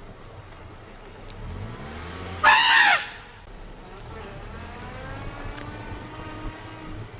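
An Asian elephant trumpets once, a loud blast about half a second long about two and a half seconds in, falling in pitch as it ends. Under it runs a vehicle's low engine hum.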